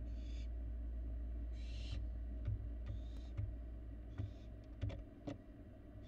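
Barn owl fledglings giving raspy, hissing calls: four bursts of about half a second each, roughly a second or so apart. Several sharp clicks and knocks come between the later calls, over a steady low hum.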